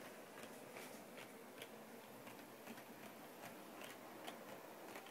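Faint, irregular clicking, a few ticks a second over low room hiss, from a Kato HO-scale F40PH model train running on the layout's track.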